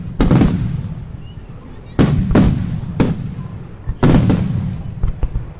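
Aerial firework shells bursting: a run of sharp booms, several in quick succession, each trailing off in a rumbling echo.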